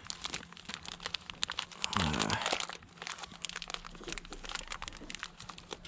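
Packaging crinkling and crackling as it is handled and unwrapped, a dense run of small sharp crackles.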